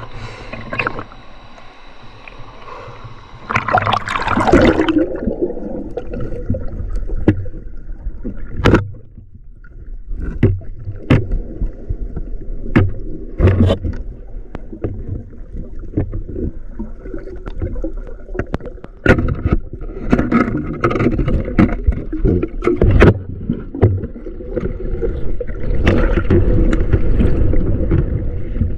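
Water gurgling and sloshing close to the microphone, with scattered sharp knocks and clicks, growing louder near the end.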